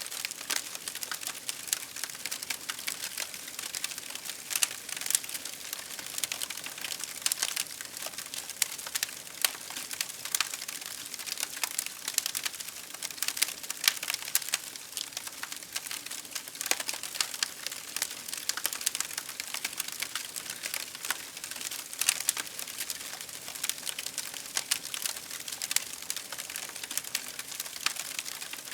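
Fire crackling steadily: dense, irregular pops and snaps over a soft hiss of burning.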